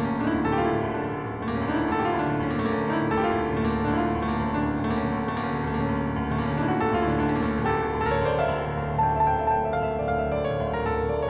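Background keyboard music with a sustained low bass and repeating note figures.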